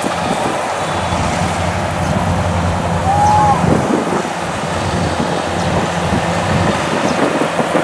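Kubota rice combine harvester's diesel engine running steadily under load as the machine drives through the standing rice, a continuous low rumble.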